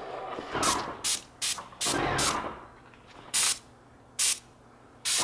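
Paint sprayer gun firing about seven short bursts of spray, pulled on and off by the trigger, onto a door.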